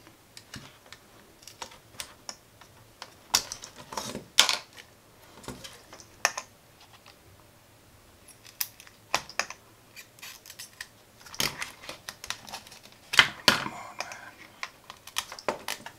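Irregular sharp clicks and taps from hands working a circuit board with a soldering iron and small tools, and from freed parts being dropped into a plastic tub.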